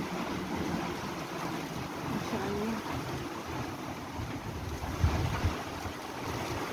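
Strong wind from a dust storm blowing steadily and buffeting the microphone, with a heavier gust about five seconds in.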